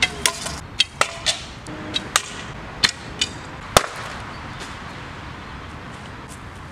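A string of sharp clicks and knocks from archery gear as an arrow is readied and shot, ending in one loud crack about four seconds in as the arrow strikes the package hung on the tree and knocks it down.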